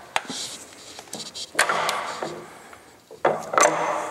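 Metal clicks and clanks from the breech mechanism of a Vickers, Sons & Maxim 2.95-inch mountain gun being worked by hand: a few light clicks, then a ringing clank about a second and a half in and another a little after three seconds.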